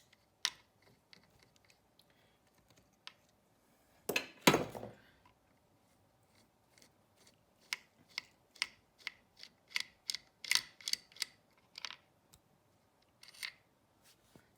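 Hand tools being handled on a garage bench. There is a loud clatter about four seconds in, then a run of sharp metallic clicks at about three a second for several seconds, and one more click near the end.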